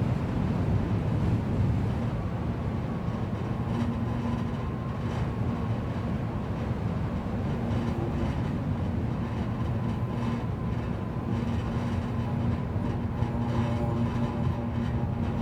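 Wind blowing across an electricity pole and its wires, sounding like an aeolian harp: a steady low rumble with faint humming tones that come and go, more of them joining near the end.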